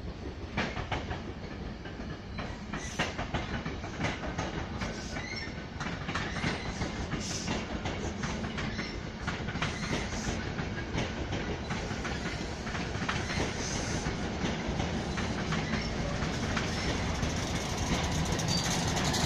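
Passenger train coaches rolling past on electrified track, wheels clicking over the rail joints, with a steady rumble that grows louder toward the end.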